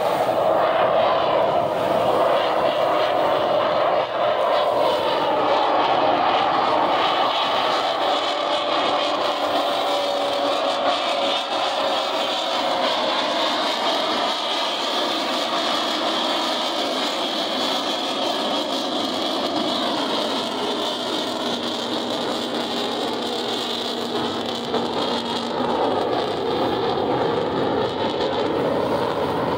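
An F-35 fighter jet's F135 turbofan engine on a slow pass: a loud, steady jet rumble with a whine that slowly falls in pitch partway through.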